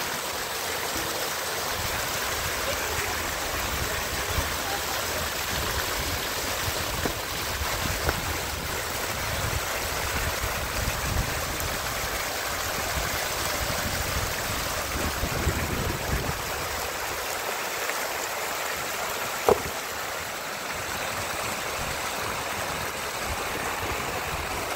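Heavy rain falling steadily, with one sharp knock about three-quarters of the way through.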